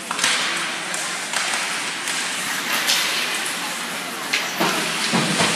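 Ice hockey play in an echoing rink: skate blades scraping the ice and sticks and puck knocking, with several sharp knocks in among the scraping.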